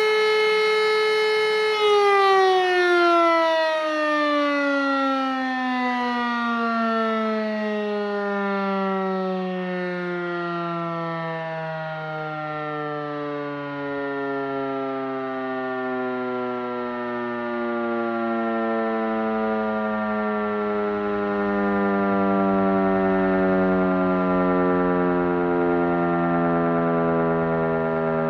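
E57 electromechanical civil-defence siren holding a steady tone, then from about two seconds in its pitch falls slowly and smoothly as the rotor runs down after the motor is switched off.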